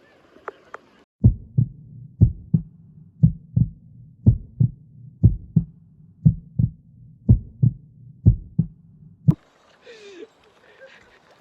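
Heartbeat sound effect: about eight slow lub-dub double thumps, one pair roughly every second, then a last single beat near the end.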